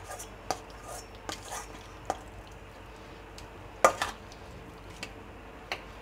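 Raw chicken pieces being set down one by one in an empty metal kadai, with scattered soft knocks and clinks of metal. The sharpest knock comes about four seconds in.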